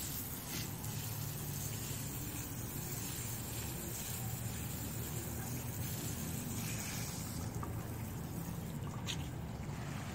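Water hissing steadily from a garden hose's fan-spray nozzle and splashing onto wet brick paving and a shrub, over a steady low rumble. A single sharp click comes about nine seconds in.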